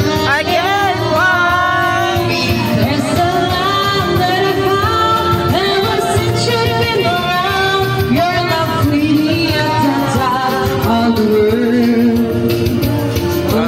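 Music with a singing voice: a wavering sung melody over steady bass notes.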